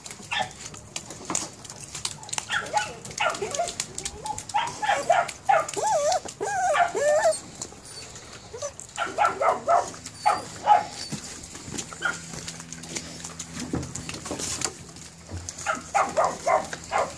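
Presa Canario puppies tugging on a rope, giving short high yips and whines in clusters, with a longer wavering whine about five seconds in.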